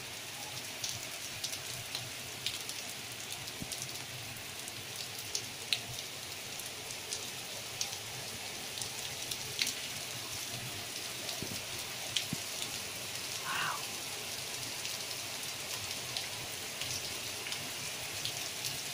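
Torrential rain pouring down and splashing on the road and hard surfaces: a steady, even hiss with scattered sharper taps of individual drops.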